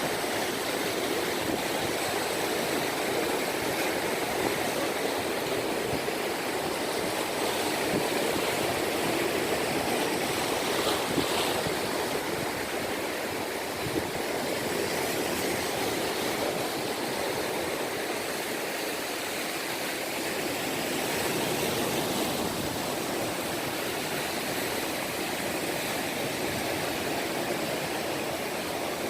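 Choppy sea water washing steadily against a harbour edge, an even rushing noise with no clear breaks.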